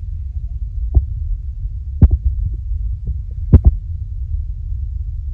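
Wind buffeting the microphone as a steady low rumble, with a few sharp knocks: one about a second in, then close pairs at about two and three and a half seconds in.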